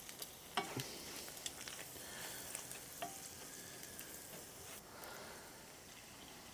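Faint sizzle of browned sausage frying in a stainless steel skillet as flour is stirred in for a sausage gravy, with a few light scrapes and taps of the spatula against the pan. The sizzle dies down near the end.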